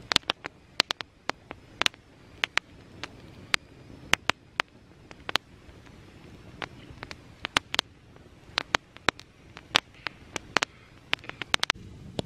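Small campfire of sticks and split wood crackling, with sharp pops coming irregularly, several a second.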